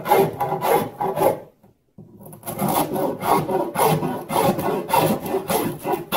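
Flat metal hand file scraping back and forth along the edge of a fiberglass hull layup, trimming away the thin resin and gelcoat buildup on the masking-tape boundary, about three strokes a second. The filing pauses briefly about one and a half seconds in, then carries on.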